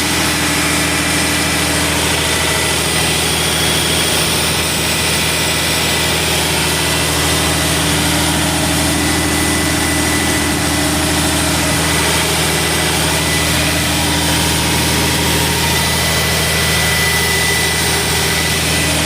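Sullair 375 cfm portable air compressor's diesel engine running steadily at an even, loud pitch that does not change.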